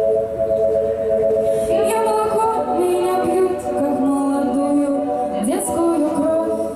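Layered a cappella vocal harmony: a held chord of female voices with a live female voice singing a moving melody over it. About five and a half seconds in, the voice makes a quick upward slide.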